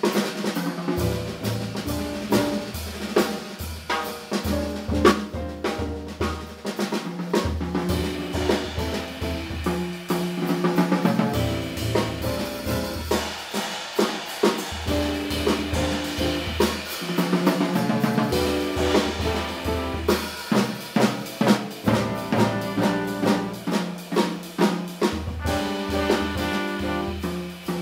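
Jazz drum kit played busily, with snare strokes, rimshots and bass-drum hits to the fore, over an upright bass repeating a low figure and piano.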